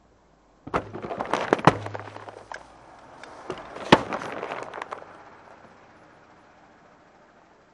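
Car tyres rolling over a row of full aluminium drink cans: two spells of crunching and sharp pops as the cans crush and burst, the loudest pop about four seconds in. A hiss follows and fades out as the foaming drink sprays out.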